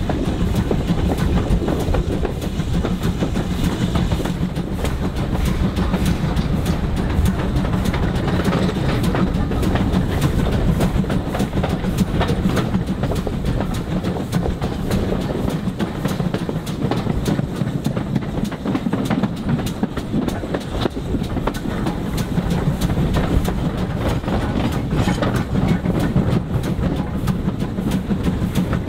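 A heritage railway train running along the line, with a steady rumble and wheels clicking over the rail joints.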